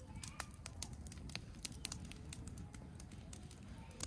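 Wood campfire crackling, with irregular sharp pops and snaps from burning split logs.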